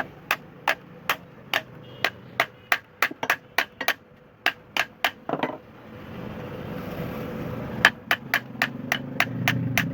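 Hammer tapping repeatedly in a steady rhythm, about two to three blows a second. There is a pause of about two seconds midway, then a faster run of blows near the end.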